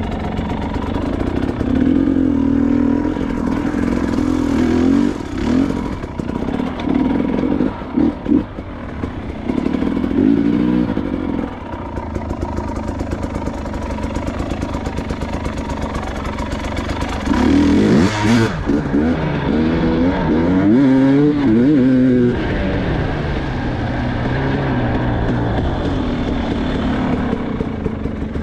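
Dirt bike engine idling with repeated throttle blips, its revs rising and falling several times, with a longer stretch of revving a little past the middle.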